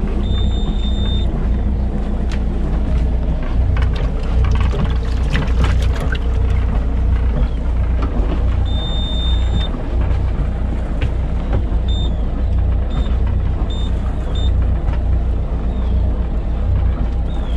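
Steady low rumble of a boat at sea, with knocks and rattles of the fishing gear being handled in the first half. A high-pitched electronic beeping runs over it: one long beep at the start, another about nine seconds in, then several short beeps around twelve to fourteen seconds in. The beeps come from the BJ 5000 EX automatic jigging machine signalling its catch.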